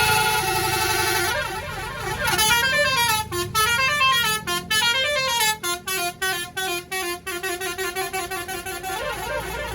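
A tour bus's basuri telolet horn playing a tune. It runs rising and falling notes, then short chopped notes, then switches back and forth between two notes.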